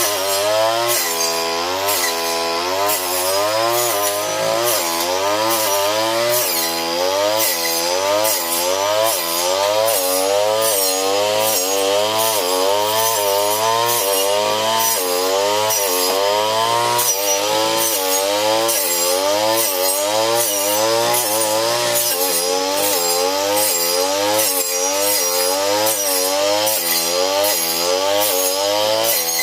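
A brush cutter's small engine runs hard while its blade chops patchouli stems and leaves. The engine speed dips and recovers about once a second as the blade bites into the plants, with a crisp chopping hiss on each pass.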